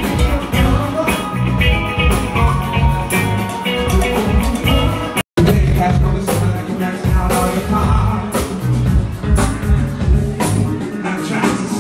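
Live band playing loudly, with a steady drum beat, electric guitar and singing. The sound cuts out for a split second about five seconds in.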